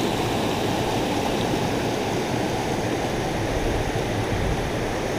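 Creek rapids: shallow water rushing steadily over low shale ledges and riffles.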